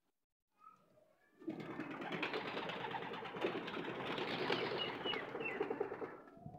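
A flock of racing pigeons cooing together in a dense, continuous chorus that starts abruptly about a second and a half in and fades near the end, with a few short high chirps in the middle.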